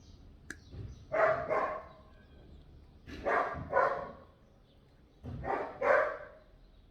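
A dog barking in doubled barks, three pairs about two seconds apart.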